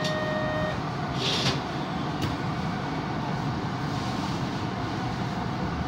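Tokyo Metro Ginza Line 1000 series subway train standing at a platform with a steady low hum. A short beep sounds at the start, a brief hiss of air follows about a second in, and a single click comes shortly after.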